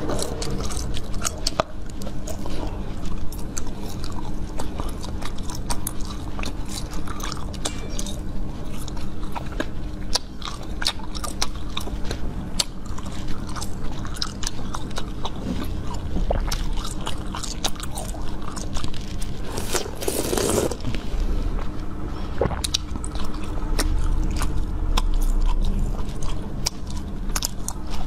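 Close-miked eating of firm red jelly: biting and chewing with many small wet clicks and crackles. A louder rush of noise lasts about a second, around two-thirds of the way through.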